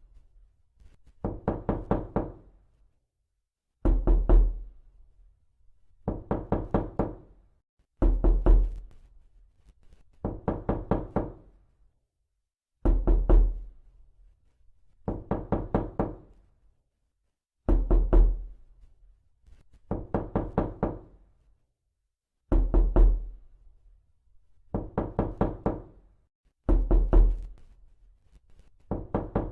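Knocking, as on a door, in repeated bursts of several quick knocks. A heavier burst with a deep thud is followed about two seconds later by a lighter one, and the pair repeats every four to five seconds.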